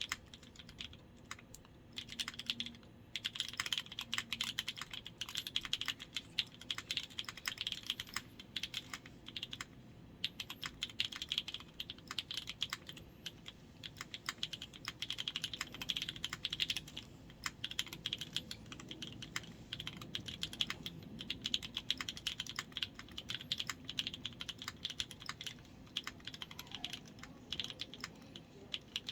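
Mechanical keyboard with NK Cream linear switches and ePBT keycaps being typed on in quick bursts with short pauses, starting about two seconds in. Its sound is rough, which the builder puts down to the board needing more tuning.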